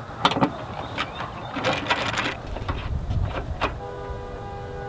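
Scattered clicks and knocks of small screws and the plastic rear fender of a Vespa LX scooter being handled during fender removal. A held pitched tone joins about four seconds in.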